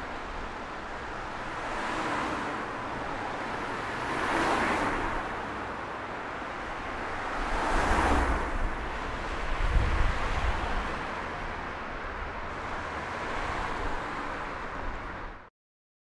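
Street traffic noise: a steady wash of car engines and tyres, with vehicles passing by in louder swells every few seconds. A deeper rumble comes in around eight to ten seconds in, and the sound cuts off suddenly near the end.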